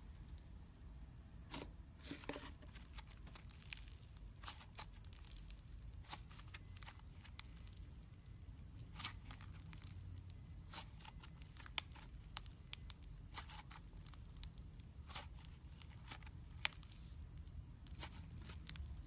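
Slime being handled by hand, giving irregular sticky clicks and crackles over a low steady hum.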